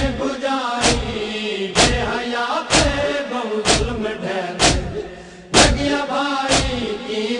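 Men's voices chanting a Punjabi noha (Shia lament) in unison, with a sharp chest-beating matam slap about once a second. The chanting breaks off for a moment about five seconds in, and the next slap comes loud.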